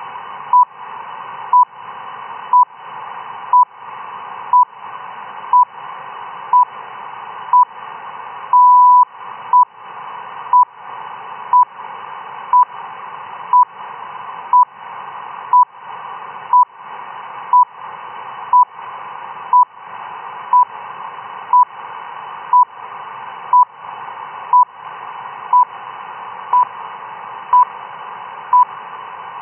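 RWM time-signal station received on shortwave near 10 MHz: short beeps once a second over radio hiss. One longer beep about nine seconds in is the minute marker.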